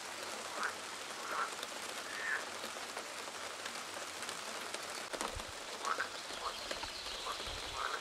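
Steady rain falling on grass and leaves, a light even hiss, with short calls every second or so. A low rumble joins about five seconds in.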